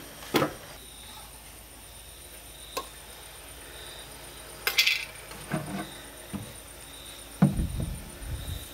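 Metal varnish tins and their lids being handled on a concrete floor: a few separate sharp clinks and taps, the loudest about five seconds in, then duller knocks near the end.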